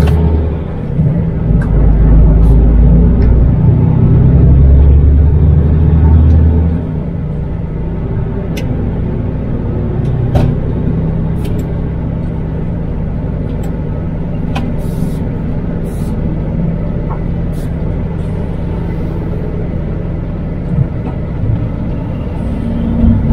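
MAN TGX truck's diesel engine heard from inside the cab, running with a loud low drone that dips briefly twice, then easing to a quieter, steady run about seven seconds in. Scattered faint clicks ride over the road noise.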